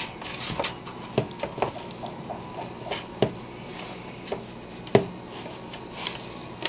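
Hands rubbing and patting dry spice rub into a rack of raw St. Louis-cut pork ribs on a metal baking sheet, a soft rubbing sound broken by a few sharp taps.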